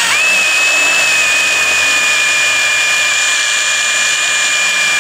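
Hand drill running with a steady high-pitched whine as a Blair spot weld cutter cuts through a metal flat bar. The whine climbs quickly at the start, then holds, easing down slightly after about a second.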